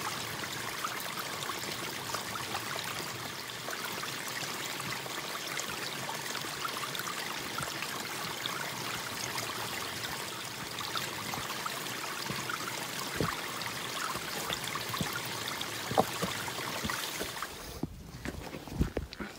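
Steady trickling and running of water over rocks, with small drips and splashes throughout. Near the end the water sound drops away suddenly and a few footsteps on rock are heard.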